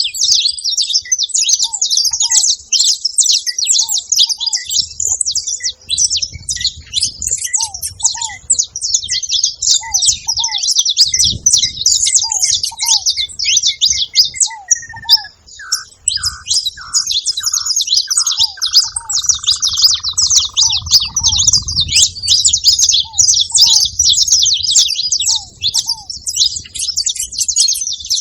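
Saffron finches chirping busily and without pause, a dense chatter of rapid high notes. A lower pair of short falling notes repeats every second or two, and a longer falling call breaks in around the middle.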